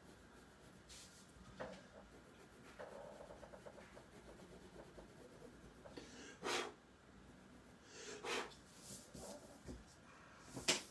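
Pencil scratching and rubbing across drawing paper in short shading strokes, faint, with a few louder strokes every second or two, the loudest near the end.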